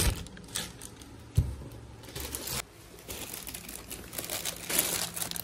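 Plastic parts bags and packaging crinkling as they are handled, with one sharp knock about a second and a half in.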